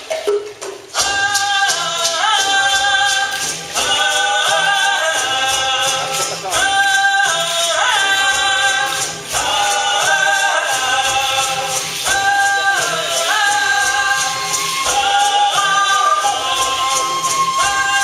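Music: a group of voices singing in unison with sliding pitches, over a fast, steady percussion beat.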